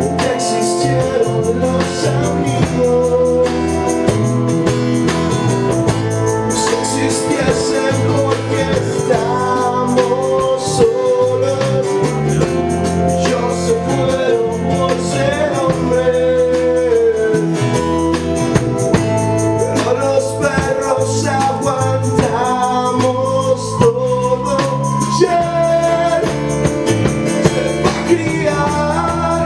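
A band playing live: a man sings lead in Spanish over guitar, bass and keyboard.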